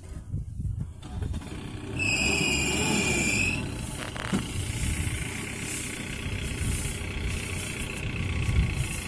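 Mahindra Bolero Pickup's engine running as the heavily loaded truck creeps slowly across rough field ground, a steady low rumble. About two seconds in, a high steady tone sounds for about a second and a half.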